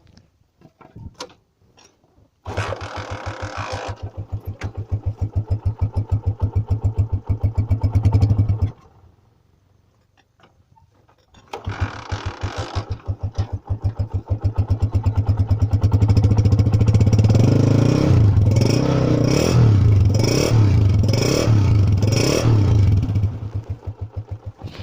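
Honda CG125's single-cylinder four-stroke engine starting about two and a half seconds in and idling with an even pulsing beat, then stopping about six seconds later. It starts again about three seconds after that and idles, then is revved in five quick blips before dropping back to idle near the end.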